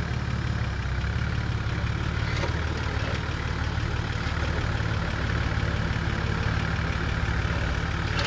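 Nissan GU Patrol 4WD engine running steadily at low revs while the truck crawls slowly over a rock ledge.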